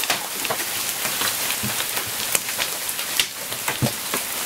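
Hailstorm: hailstones and rain pelting wooden deck boards and shrub leaves. A steady dense hiss is dotted with many sharp clicks of stones striking.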